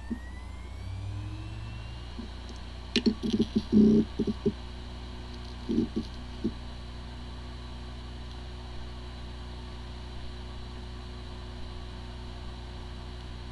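Hard drive with corrupted disk firmware spinning up with a faint rising whine, its heads clicking in a short run about three seconds in and again around six seconds, then spinning with a steady whir. It sounds like a healthy drive even though the computer cannot detect it.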